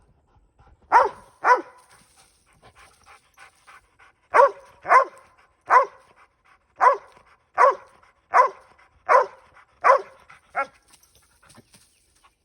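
Pit bull barking, about eleven short barks: a pair about a second in, then after a pause a steady run of barks roughly one every three-quarters of a second.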